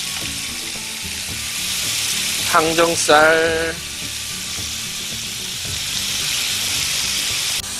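Pork belly slices, baby octopus and kimchi sizzling on a hot stone griddle plate, a steady frying hiss.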